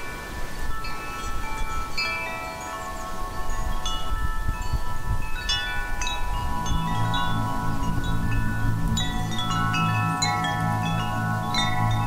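Wind chimes ringing in irregular clusters of overlapping struck metal tones that each ring on, with a light wind rumble underneath. About halfway through, a deep, pulsing low tone comes in beneath the chimes and holds.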